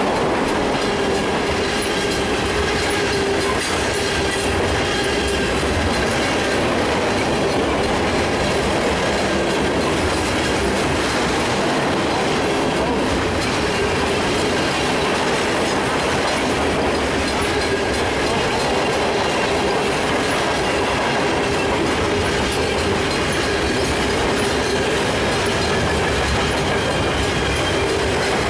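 A mixed freight train's cars (hoppers, tank cars and boxcars) rolling steadily past at close range: a continuous rumble of steel wheels on rail, with faint steady squealing tones running through it.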